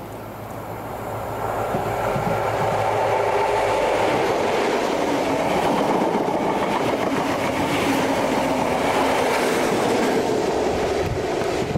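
Class 43 High Speed Train passing close by at speed. It swells over the first two seconds as it approaches, then holds as a loud, steady rush of wheels on rail while the coaches go by, and the rear power car passes near the end.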